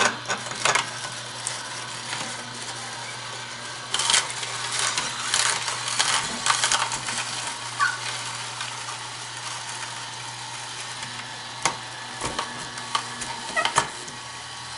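Horizontal masticating juicer running with a steady low hum as its auger crushes cucumber, celery and apple pressed down the feed chute with a plunger, giving irregular crunching and crackling.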